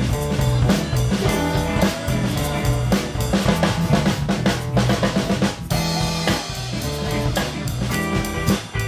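Instrumental band music: electric guitar and keyboard playing over a steady drum-kit beat with a strong low bass line.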